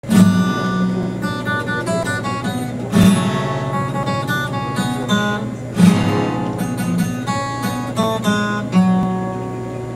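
Acoustic guitar playing a ballad's introduction: a strummed chord about every three seconds with single picked notes between, the last chord ringing out near the end.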